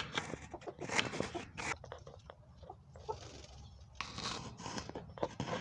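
Chickens and doves moving about, with irregular pecking, scratching and tapping sounds and a couple of short soft bird calls.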